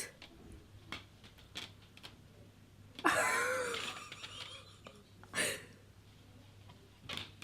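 Mostly quiet with scattered faint clicks. About three seconds in comes a breathy vocal sound with a wavering pitch, lasting over a second, and a short hiss follows about two seconds later.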